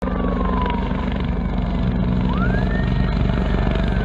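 Firefighting helicopter flying overhead with its water bucket slung below, its rotor beating steadily and loudly. Over it runs a thin whine that glides down, sweeps sharply up about two seconds in, then slowly falls again.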